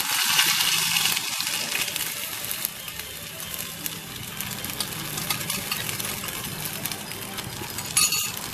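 Hot ghee in a kadai sizzling and crackling as an egg, milk and sugar mixture is poured into it; loudest in the first second or so, then a steady sizzle, with a short louder flare near the end.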